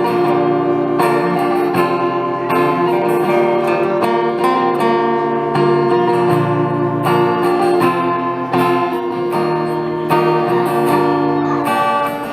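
Acoustic guitar strumming a country song, with no singing.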